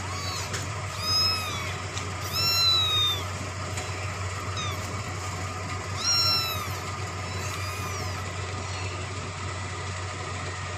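Kittens meowing: about six short, high-pitched meows, the loudest about a second, two and a half and six seconds in. A steady low hum runs underneath.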